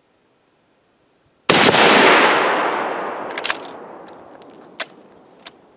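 A single shot from a scoped, sporterized Lee-Enfield bolt-action rifle about a second and a half in, its echo rolling away over several seconds. A few sharp metallic clicks follow as the bolt is worked.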